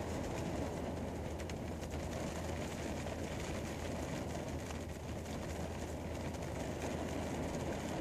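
Rain falling on a car's roof and windows, heard from inside the car: a steady, dense patter of drops with a steady low hum beneath it.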